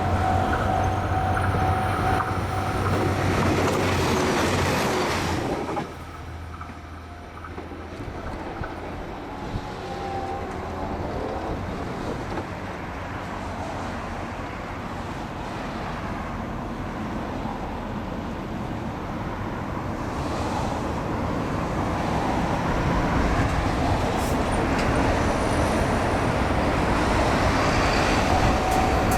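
A train running past on the line, loud for the first six seconds, dropping off suddenly, then building up again slowly as a train comes closer. A level crossing's warning bell rings in the opening seconds and again near the end.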